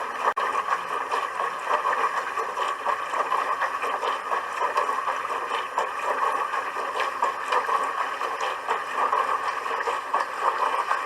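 Dishwasher running: a steady rush and splash of water inside the tub, with a momentary dropout just after the start.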